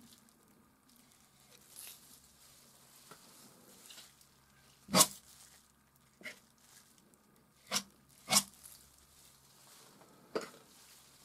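Painting tools handled on a hard surface: about five sharp knocks and clicks, the loudest about five seconds in, with faint scraping and rustling between.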